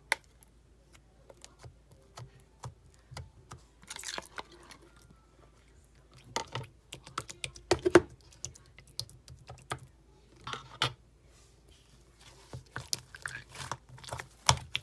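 Irregular light tapping and clicking like typing, with a louder knock about halfway through.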